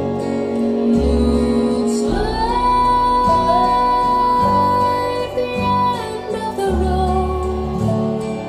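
Recorded music played through YG Acoustics Carmel 2 loudspeakers: a woman singing over acoustic guitar, with one long held note from about two to six seconds in.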